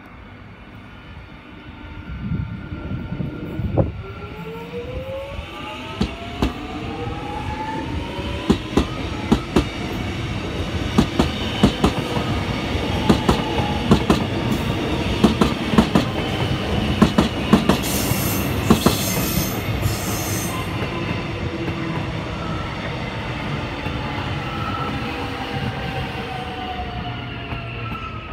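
Train running past on the platform line. The noise builds up and eases off again, with a quick series of clicks as the wheels cross rail joints and a whine that rises and then falls in pitch. A burst of high hiss comes about two-thirds of the way through.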